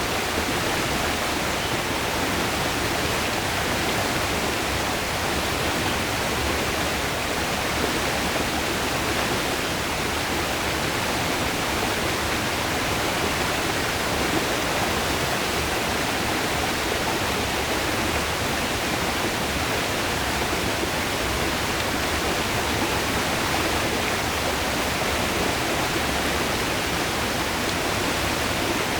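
Langevin River water rushing, a steady, unbroken roar of flowing water.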